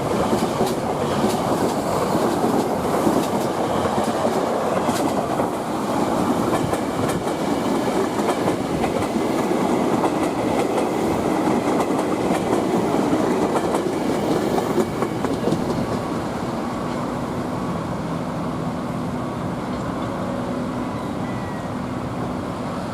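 Passing train, its wheels clattering over the rail joints in a dense, loud rumble. The noise drops about sixteen seconds in, leaving a steadier, lower hum.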